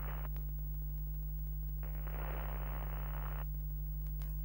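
Steady low electrical hum with hiss of static over it twice: once ending just after the start, again from about two to three and a half seconds in. There is a short crackle near the end.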